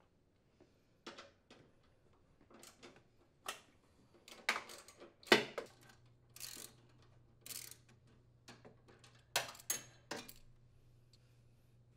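Irregular metal clinks and knocks as the steering shaft and support parts of a Craftsman riding mower are handled and lifted by hand. The loudest knock comes about five seconds in.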